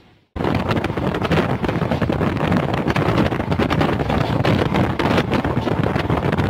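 Wind rushing in at the open barred window of a moving train's sleeper coach, mixed with the coach running along the track and frequent sharp rattles. It starts abruptly a moment in, after a brief silence.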